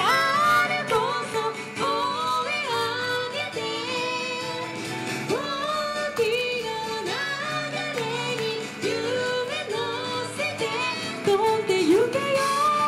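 Okinawan song performed live: a woman's voice singing with sliding, bending pitches over instrumental accompaniment, holding a long note near the end.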